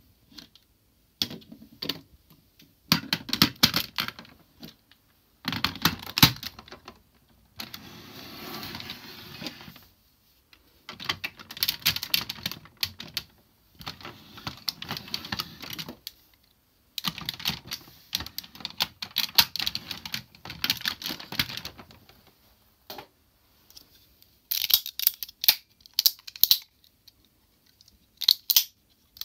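Hard plastic parts of a DX Zyuohger combining-robot toy clicking, snapping and rattling in bursts as they are handled and fitted together, with a few seconds of plastic rubbing and sliding against plastic early on.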